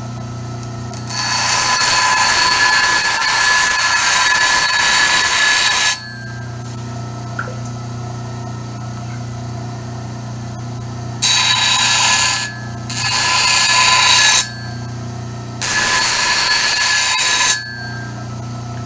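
Slow-speed bench grinder with an 80-grit CBN wheel humming steadily while the steel spine of a santoku knife is pressed against it four times, giving a loud harsh grind with a metallic ringing of the blade. The first pass lasts about five seconds; the three that follow are shorter and come close together.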